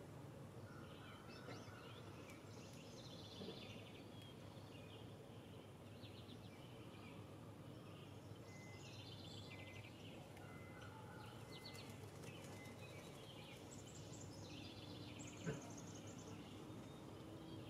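Faint backyard birdsong: several birds calling and trilling off and on over a low outdoor hiss, with a single sharp click about fifteen seconds in.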